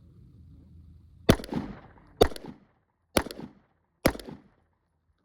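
Four pistol shots, a little under a second apart, each with a short echo trailing after it: the first shots of a timed string of fire begun on a shot-timer beep.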